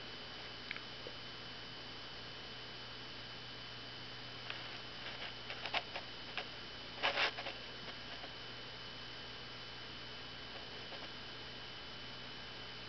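Steady electrical hum, with a scatter of soft clicks and taps in the middle, the loudest about seven seconds in.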